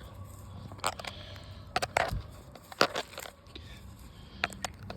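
Irregular crunching and crackling, a handful of sharp snaps spread over a few seconds, from weeds being pulled up from the deck and handled.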